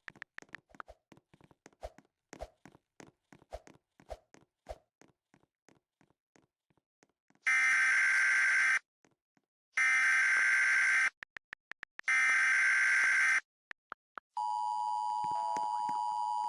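Emergency Alert System tones: three short buzzy data bursts about a second apart, then the steady two-tone attention signal, as broadcast with a severe weather warning. A run of faint clicks comes before the bursts.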